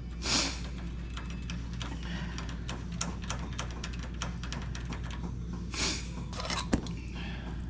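Light clicks and scrapes of an Allen bolt and hand tools being handled as the bolt is threaded back into a brake caliper, over a steady low hum.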